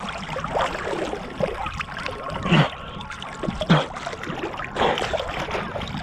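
Water splashing and sloshing close to the microphone as a person swims through cold water, stroke after stroke, with two deeper plunks about two and a half and three and three-quarter seconds in.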